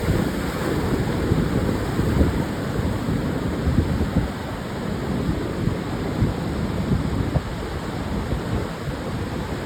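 Pacific surf washing continuously onto a sandy beach, with wind buffeting the microphone in a steady low rumble.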